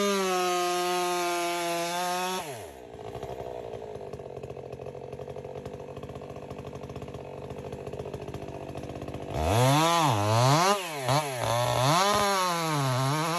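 Timber faller's gas chainsaw running at full throttle. It drops to idle after about two and a half seconds and idles for several seconds. About nine and a half seconds in it is revved up and down several times, then held at full throttle again.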